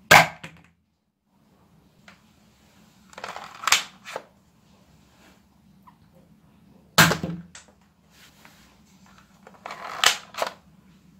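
Iron Man Nerf dart blaster firing, with a sharp shot at the start and another about seven seconds in. Between the shots, around four seconds and again near ten seconds, its plastic slide is racked to prime it.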